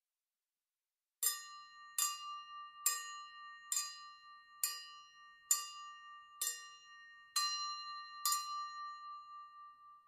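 A piece of silverware tapping a drinking glass nine times, a little under one tap a second, starting about a second in. Each tap rings on in a clear tone, and the ringing fades out after the last tap.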